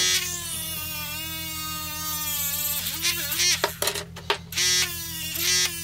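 Homemade mini drill's small DC motor whining as its bit bores through a wooden ruler, the pitch sagging slightly under load. The whine breaks off about three seconds in with a few clicks, then runs again near the end.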